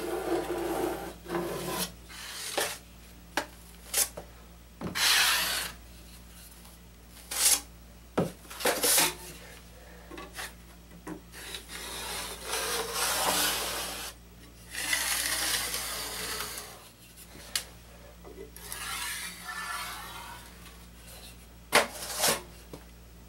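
Drywall knife spreading and scraping joint compound along metal corner bead for a first coat: a series of rasping strokes, each a second or two long, with sharp clicks and taps between them.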